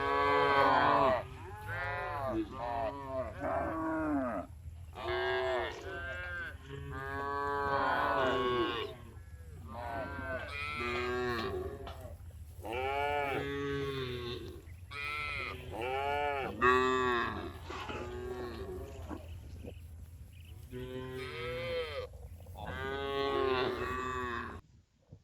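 Cows mooing again and again, a string of short rising-and-falling calls one after another with brief gaps. A steady low rumble runs underneath, and the calls cut off suddenly near the end.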